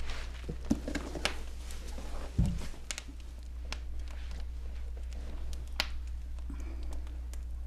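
A snakeskin cowboy boot being worked on over a socked foot: scattered clicks, creaks and rustles, with one low thump about two and a half seconds in. A steady low hum runs underneath.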